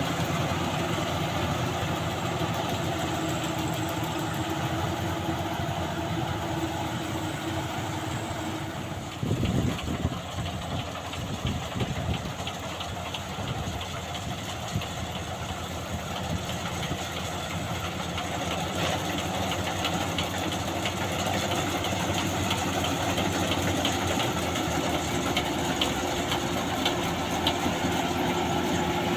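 Combine harvester's engine running steadily, with a cluster of knocks and thumps about nine to twelve seconds in and light rattling clicks later.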